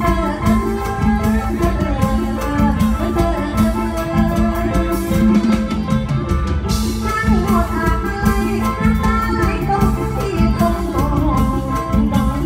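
Live mor lam band music over the stage sound system, with a steady beat and a woman singing into a microphone.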